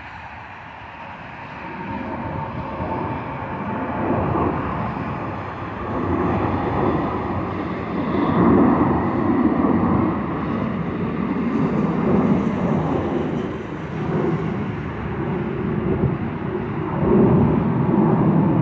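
Jet engine noise from a Southwest Airlines Boeing 737's two turbofans as it climbs overhead. It builds from about two seconds in and rumbles on, swelling and dipping, then begins to fall away at the very end.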